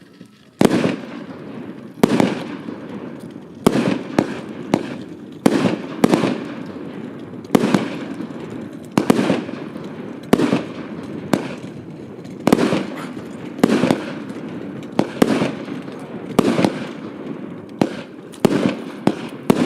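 Hallmark Fireworks 'Royal Salute' firework going off shot after shot: a sharp bang about every second or so, each trailing off into echo.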